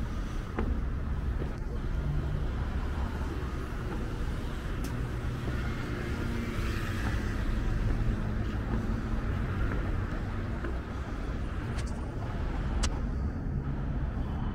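City street ambience: a steady low rumble of road traffic that swells around the middle as a vehicle goes by, with a few short, sharp clicks.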